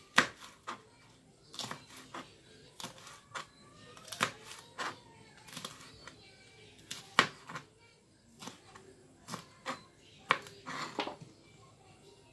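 Kitchen knife chopping through green chillies and knocking on a plastic cutting board: sharp, irregular taps about once or twice a second.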